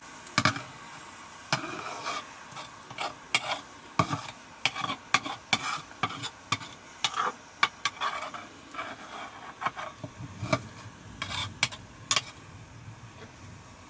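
A flat metal spatula stirring and beating thick maize-flour mash (dhido) in a metal pot, with irregular scraping strokes and sharp knocks against the pot's rim and sides. The strokes thin out near the end.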